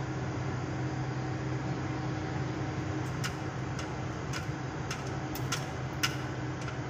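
Truck engine and road noise heard from inside the cab while driving at highway speed, a steady low hum. Several sharp clicks come irregularly through the second half.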